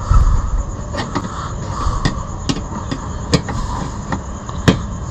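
A screwdriver prying and knocking at the metal clip hole behind a car's front bumper to bend it inwards: irregular sharp clicks and knocks over a low rumble.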